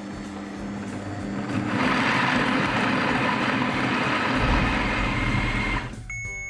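Witt MyCook Touch multicooker chopping cauliflower into rice in its steel jug: the motor runs quietly at first, then about two seconds in a loud, rough whirr of blades and cauliflower pieces takes over for about four seconds and stops suddenly. A short electronic beep follows near the end, as the machine signals that the step is done.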